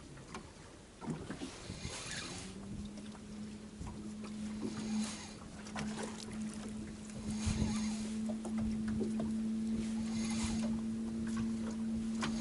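Choppy water splashing against the boat's hull every two to three seconds, over wind. A steady low motor hum starts about a second in, and more tones join it about two-thirds of the way through.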